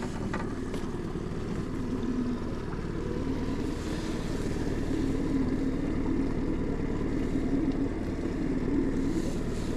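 Boat's outboard motor running steadily in the background, a low hum with a faint, slightly wavering tone.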